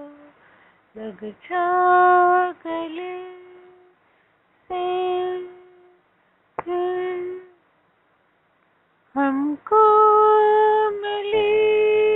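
A woman singing unaccompanied, in four phrases of long held notes with short silences between them; the last phrase, near the end, is the longest and loudest.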